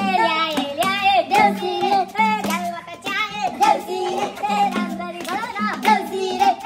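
Young men singing a Deusi song, with hand claps and madal drum strokes keeping a steady beat.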